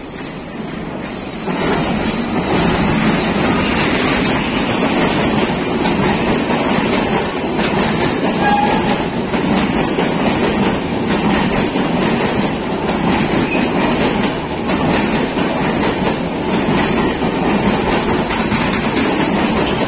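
Express train of LHB coaches hauled by a WCAM-3 electric locomotive running past at speed: a steady loud rumble with the clickety-clack of wheels over rail joints. The noise jumps up sharply about a second and a half in as the train reaches the platform, then holds.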